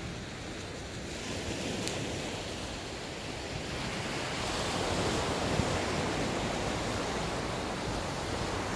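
Small surf waves breaking and washing up a sandy beach, the wash swelling to its loudest around the middle.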